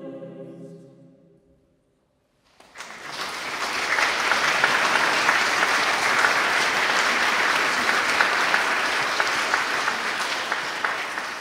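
A mixed choir's final held chord fades away into a moment of silence, then the audience starts applauding, the clapping building quickly and holding steady.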